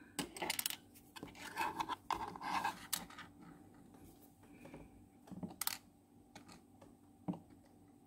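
Small pliers and a plastic hinge bushing clicking and scraping against the steel hinge of a refrigerator door as the bushing is worked onto the hinge pin. A handful of separate light, sharp clicks and short scratches, with quiet between them.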